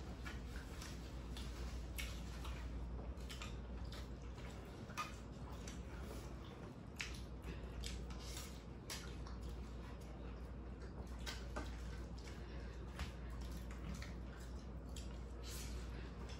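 People eating fried chicken wings and noodles: chewing and lip-smacking, with many irregular soft wet clicks.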